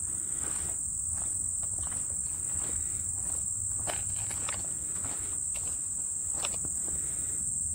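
Crickets chirring in a steady, unbroken high-pitched chorus.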